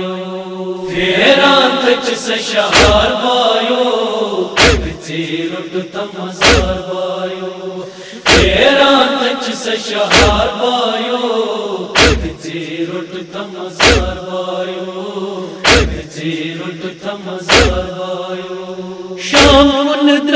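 Kashmiri noha: a lead voice chanting a mournful lament through a microphone, a crowd of men's voices joining in. About every two seconds, a heavy, unison chest-beat (matam) lands in time.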